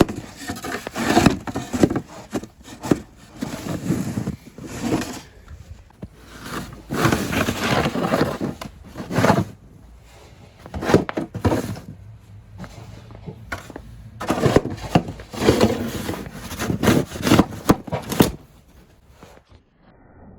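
Snow shovel scraping and pushing snow off pavement in repeated, irregular strokes with short pauses between.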